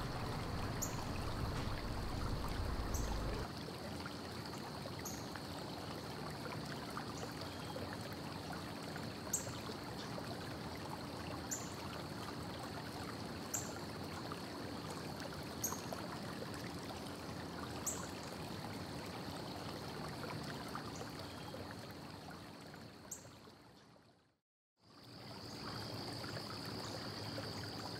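Steady background hiss with a faint high whine and faint ticks about every two seconds; it cuts out briefly near the end.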